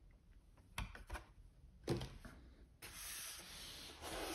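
Cardboard packaging handled on a wooden tabletop: two light knocks, then a steady scraping rub lasting about a second and a half as a cardboard box slides across the table.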